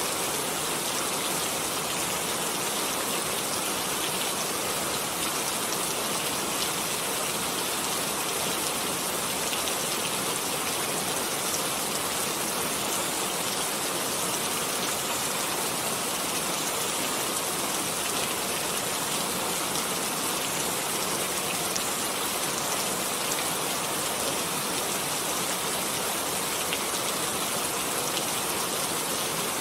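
Steady rain falling, an even dense hiss with fine patter of drops, unchanging throughout.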